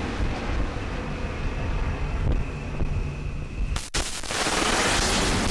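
Wind rushing over the microphone on a ship's deck at sea, with a low rumble underneath. A little under four seconds in the sound cuts off abruptly and comes back louder.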